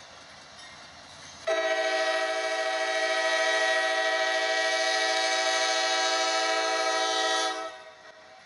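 Norfolk Southern diesel freight locomotive's air horn sounding one long steady chord of several tones for about six seconds, starting about a second and a half in and stopping near the end, over a faint rumble.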